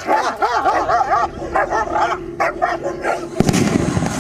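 Dogs barking and yelping in quick succession, about four arching yelps a second at first, then more scattered barks. About three and a half seconds in, a louder, even noisy rush sets in.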